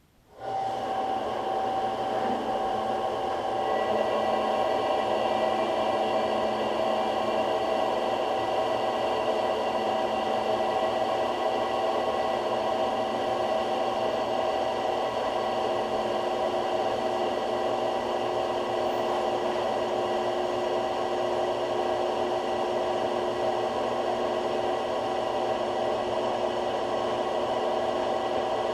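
Harbor Freight 4x6 metal-cutting bandsaw running at its slowest speed with the stock blade, cutting slowly through a part more than an inch thick. It starts up about half a second in, then gives a steady whir with a constant hum of several tones.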